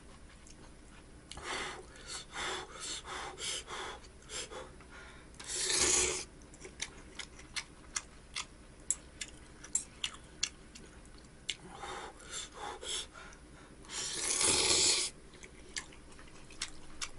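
A person slurping ramyeon noodles in several noisy pulls, the loudest about 6 s in and a longer one near the end, with chewing and small clicks of chopsticks and spoon against the bowl in between.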